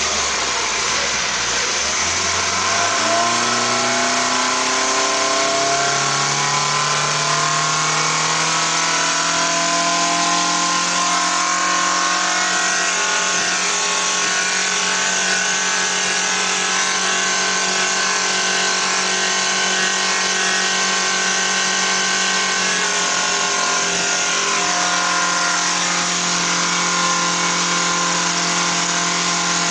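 Bearcat 85 hp outboard motor revving up over the first several seconds as the boat accelerates, then running steadily at speed, with a short dip in pitch a little past two-thirds through. The rush of water and wind runs under it.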